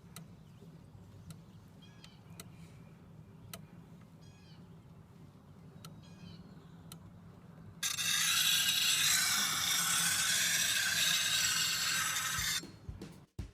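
Steel hoe blade grinding against a wet, treadle-turned grindstone: a loud, even grinding hiss that starts suddenly about eight seconds in and stops sharply about a second before the end. Before it, faint bird chirps and a few light clicks over a low hum. Drum-backed music comes in at the very end.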